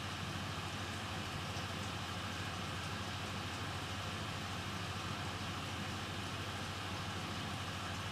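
Steady low hum with an even hiss over it and no distinct events: background noise of a workbench.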